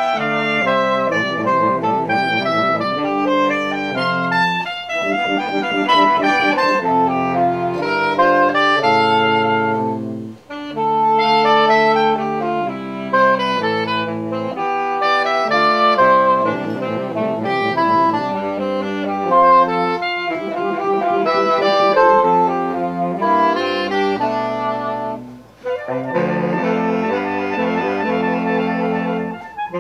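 Saxophone quartet of soprano, alto, tenor and baritone saxophones playing a contemporary classical piece live, mixing quick repeated figures with held chords. The music breaks off briefly twice, about ten and twenty-five seconds in.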